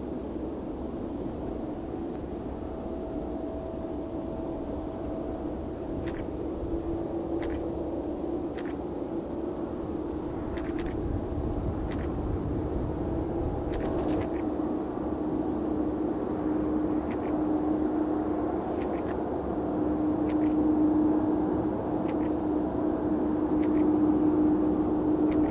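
Boeing 787-8 airliner's GEnx turbofan engines running at taxi power: a steady hum with a held droning tone over low rumble, growing gradually louder as the aircraft taxis closer.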